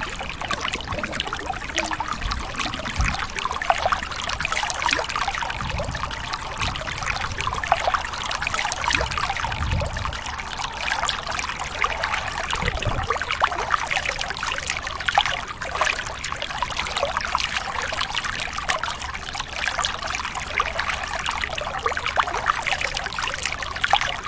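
Underwater water noise: a steady fizzing, crackling trickle of water and bubbles, with a few low thumps.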